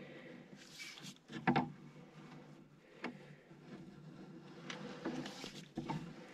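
Drain camera push cable being fed by hand down a 2-inch cast iron drain line: a few light knocks and rubbing sounds, the loudest about one and a half seconds in, over a low steady hum.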